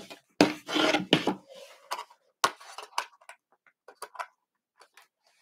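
Framework laptop expansion-card modules being worked out of their slots: a dense scraping, straining patch in the first second and a half, then scattered sharp clicks and taps as the cards are pried loose.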